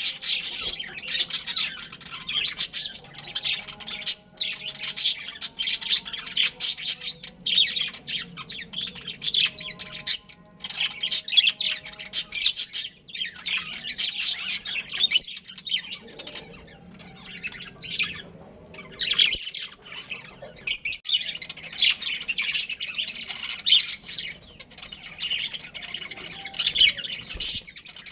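Budgerigars chattering: a dense run of quick, high-pitched chirps and squawks, broken by a few brief lulls.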